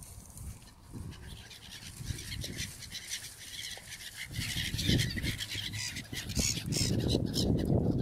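Gulls calling in a busy, overlapping chatter, with wind rumbling on the microphone; the sound grows louder toward the end.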